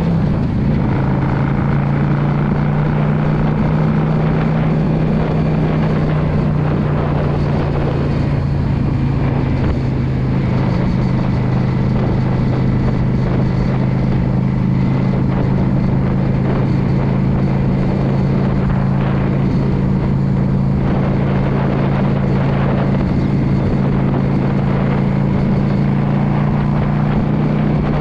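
Yamaha V Star 650 Custom's 649 cc V-twin engine running at a steady cruise. Its note drops a little just after the start, then holds steady.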